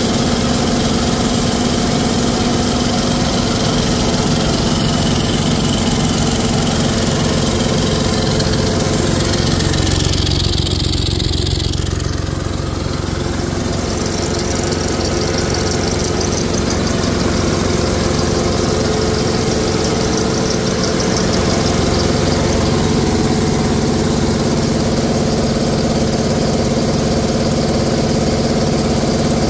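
Mercedes-Benz OM926LA 7.2-litre turbocharged inline-six diesel idling steadily during a test run, out of the truck.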